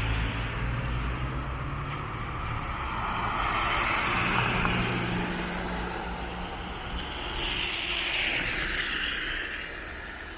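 Road traffic passing: a low engine hum fades early, and tyre noise from passing cars swells twice, about 4 seconds in and again about 8 seconds in.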